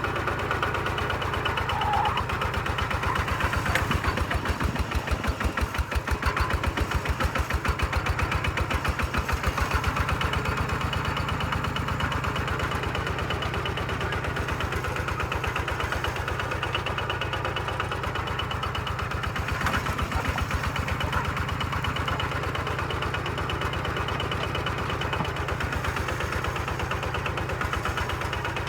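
Kubota walking tractor's single-cylinder diesel engine running with a fast, even chugging, louder for several seconds about four seconds in.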